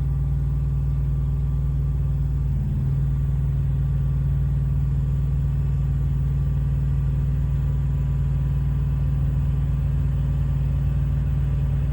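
Steady mechanical hum of the truck's APU generator running, with the Eberspächer Airtronic D2 bunk heater's blower spinning during start-up before the heater has lit its flame.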